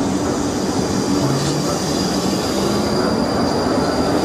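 South West Trains electric multiple unit rolling slowly past the platform: steady wheel and running noise with a thin, high-pitched wheel squeal and a low hum from the traction motors.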